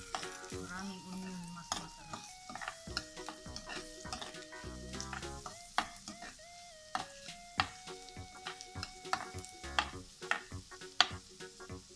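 Diced red onion sizzling as it fries in oil in a stainless steel pan, stirred with a spatula that scrapes and taps against the pan bottom in many quick, sharp knocks.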